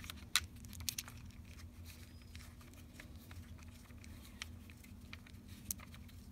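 Faint handling noise as loose screws are turned out by hand from a plastic pool valve cap: a few small sharp clicks and rubs, the clearest about half a second in, over a low steady hum.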